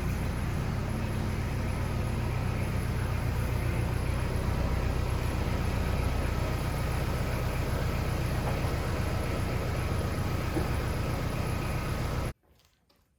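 A machine running steadily, with a low hum under an even hiss, that cuts off suddenly about a second before the end.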